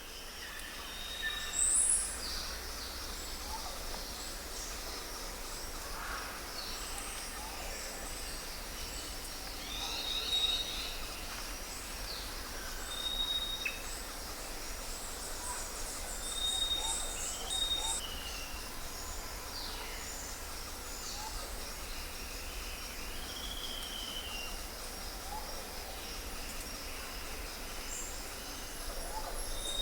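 Several birds calling and singing: short whistled notes, chirps and quick falling calls, one after another, over a steady low background rumble.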